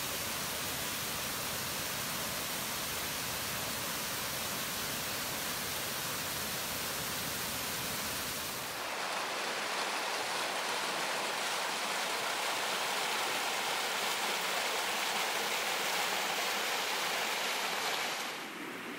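Ehrbach gorge stream rushing, a steady wash of water noise. About nine seconds in the sound changes abruptly, losing its deep rumble and turning brighter, and shortly before the end it drops in level.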